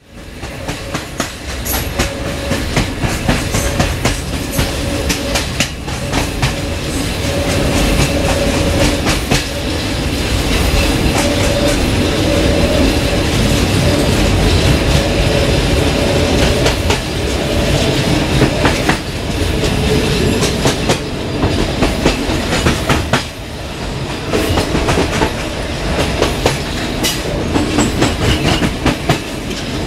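Bogies of a TE89 double-decker passenger coach rolling at speed over jointed track: continuous rumble with a steady run of clickety-clack from the rail joints.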